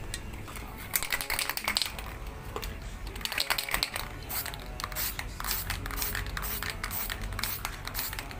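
Aerosol spray paint can being worked: a run of clicks starting about a second in, then short hissing bursts of white spray paint going onto a helmet from about four seconds in.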